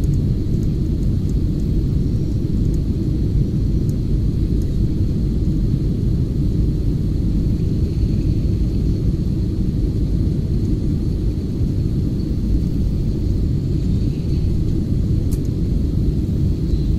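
Jet airliner cabin noise during the climb: a steady low rumble of the engines and rushing air, with a faint high whine.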